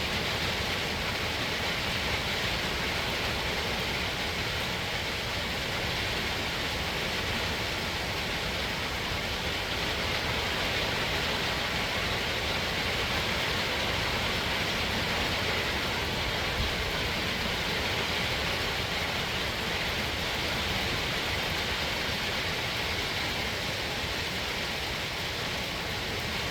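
Steady heavy rain during a thunderstorm, an even hiss with no thunderclaps.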